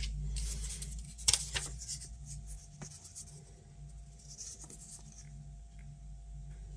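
Paper rustling and scraping as sheets of postage stamps are handled, busiest in the first two seconds and quieter after. There are a couple of light clicks, over a faint steady hum.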